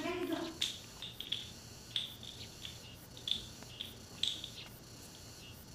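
Crickets chirping in short, high chirps, repeating irregularly about once or twice a second.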